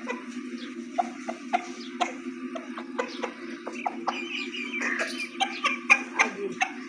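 Background music with a steady percussive beat over a constant low hum, with short high bird chirps and clucks rising over it about four seconds in.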